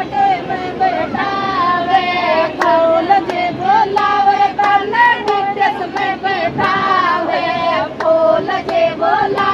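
A group of women singing a Rajasthani sithna, the teasing wedding folk song, in chorus in high voices, with sharp beats keeping time.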